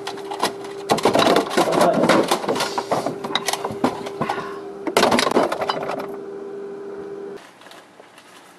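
Clattering and knocking of items being handled on the shelves of an open refrigerator, over a steady hum. The clatter and hum cut off abruptly near the end, leaving quiet room tone.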